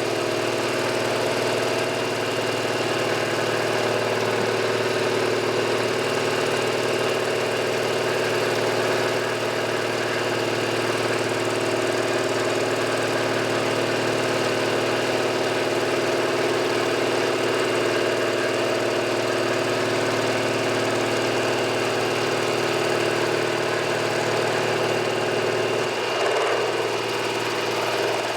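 Machine-tool motor (lathe or milling machine) running steadily with an even mechanical hum, with a brief change near the end.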